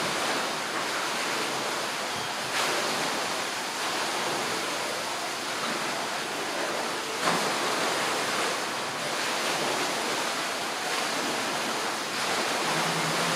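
A steady rushing noise, with a couple of brief clicks.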